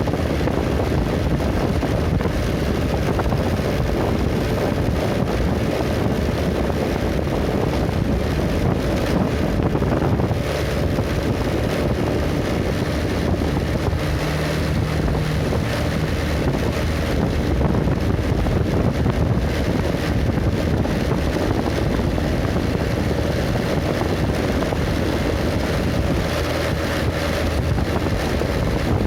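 Steady wind noise on the microphone over the engine and road noise of a moving vehicle.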